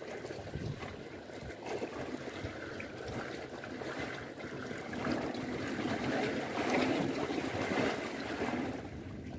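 Water lapping and trickling against concrete dam pilings, a steady wash that grows louder about halfway through and eases near the end.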